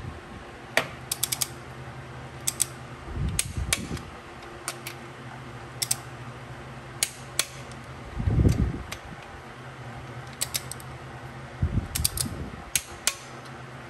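A torque wrench ratcheting and clicking on bolts being tightened to 15 ft-lb. Scattered sharp metal clicks, some in quick runs, with a few dull low thumps, the loudest about eight seconds in, over a steady fan hum.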